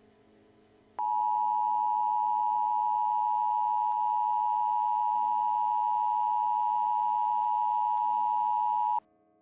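Emergency Alert System attention signal: the steady two-tone alert tone (853 and 960 Hz sounded together) comes on sharply about a second in, holds for eight seconds and cuts off abruptly. It marks the start of an emergency alert, here a National Weather Service flood watch.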